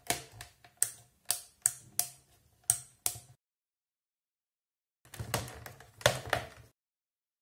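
Sharp plastic clicks and taps, about seven in three seconds, from a hard-plastic rechargeable halogen spotlight being turned over in the hands. After a gap, a denser cluster of handling knocks and rustle follows near the end.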